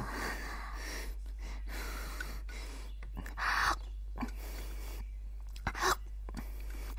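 Someone hurriedly eating tofu pudding from a bowl with a spoon: eating and slurping sounds with small spoon clicks, loudest in two short slurps about three and a half and six seconds in.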